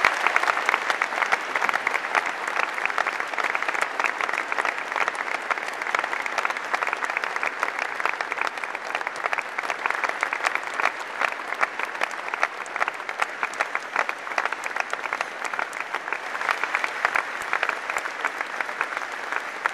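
Large audience applauding in a long, sustained ovation: dense, even clapping, loudest at the start and easing slightly as it goes on.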